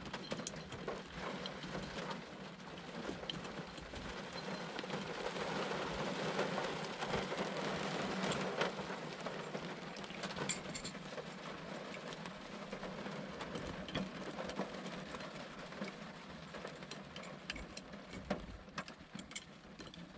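Steady rain falling on the car, with scattered small clicks and knocks from hands stuffing wiring into the steering column.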